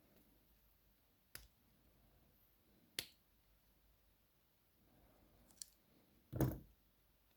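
Sharp clicks of small metal lock parts being handled: three single clicks spaced a second or more apart, then a brief louder clatter near the end, as the driver pins are taken out of an ASSA 500 pin tumbler lock during gutting.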